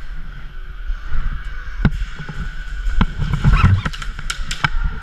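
Movement and handling noise of a player moving quickly on foot, with a low rumble and several sharp clicks and knocks, clustered in the second half.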